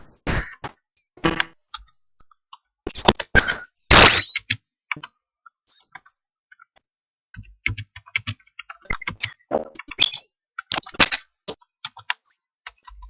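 Computer keyboard keystrokes picked up on a Viber call recording: scattered sharp clicks in quick runs, with a few louder, harsher bursts in the first few seconds, and dead-silent gaps between them where the call's audio cuts out.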